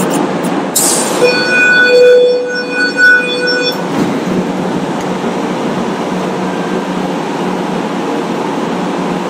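Tram running on street rails, heard from inside the car as a steady rumble. A short hiss comes just under a second in, then a steady high squeal with several overtones lasts from about one second to nearly four seconds before the rumble carries on alone.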